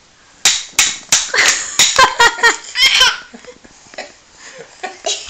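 A young child laughing: a quick run of short, high-pitched bursts from about half a second to three seconds in, then fainter bits of voice.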